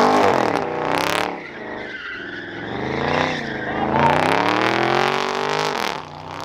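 A car engine revving up and down again and again while its tyres spin and squeal, as the car does a stunt run. The revs dip about a second and a half in, climb back toward a peak around four seconds, and drop off near the end.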